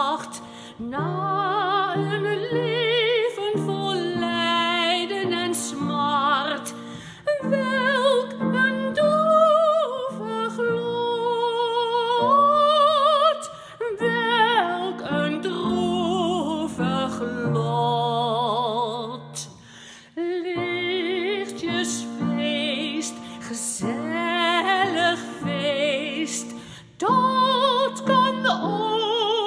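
A woman singing a Dutch song in a wide vibrato, with piano accompaniment, pausing briefly between phrases.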